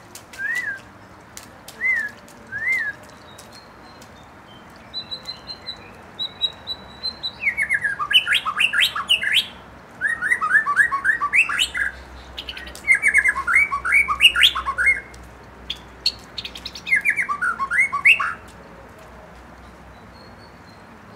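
White-rumped shama singing. It gives a few short whistled notes, then from about seven seconds in several bursts of fast, rapidly repeated rising notes, stopping a few seconds before the end.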